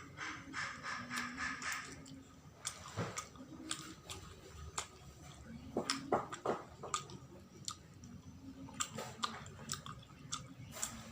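A person chewing sticky glutinous-rice sawella, with wet mouth clicks and smacks at an irregular pace.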